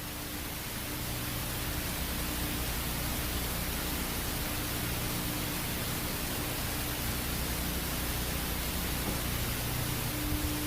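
Steady static hiss over a low hum, with a faint steady tone near the bottom that fades partway through and comes back strongly near the end: the static-laden soundtrack of an emergency-broadcast-style horror video.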